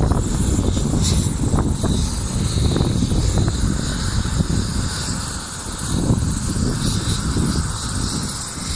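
Rescue helicopter's engine and rotor running steadily, a loud rumble with a high whine above it.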